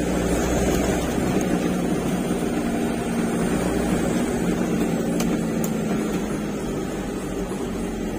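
Truck engine running steadily under way, with a constant low hum and road noise.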